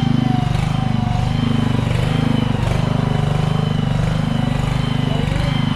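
A heavy engine runs steadily with a fast even pulse, probably the machinery positioning the delivered shed building. A thin wavering whine sits above the engine throughout.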